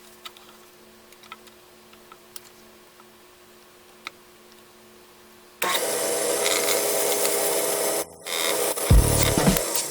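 A few faint light clicks, then a power tool working wood starts abruptly about halfway through and runs loudly, with a brief break. Music with a heavy beat comes in near the end.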